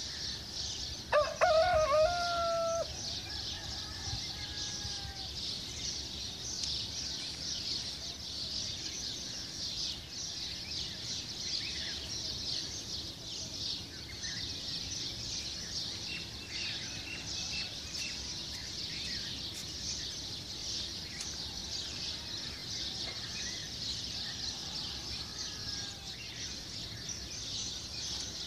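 A rooster crows once, about a second in, in a wavering call that ends on a held note. Under it runs a steady high-pitched insect hiss, with faint scattered bird chirps.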